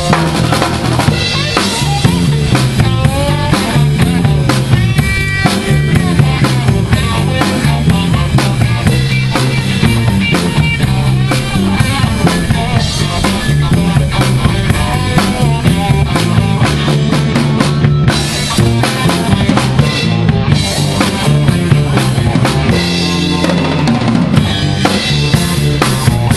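Live electric blues band playing: drum kit with bass drum and snare beating steadily under a walking electric bass line and electric guitar through small amplifiers.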